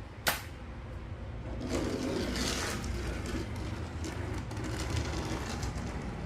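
Battery-powered toy army tank running. There is a sharp click just after the start, then a steady low rumble, with a rush of noise swelling about two seconds in.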